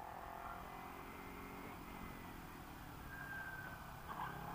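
Kawasaki Ninja 300 motorcycle engine running at road speed, heard faintly from a helmet camera with wind and road noise.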